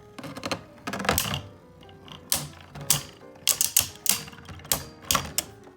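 Two Beyblade spinning tops battling in a stadium, clacking against each other in irregular sharp hits, some in quick clusters.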